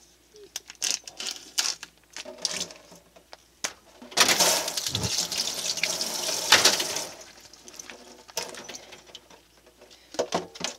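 Kitchen tap running into a stainless steel sink for about three seconds in the middle. Before and after it come light rustles and clicks of the plastic tofu tray and its film being opened and handled.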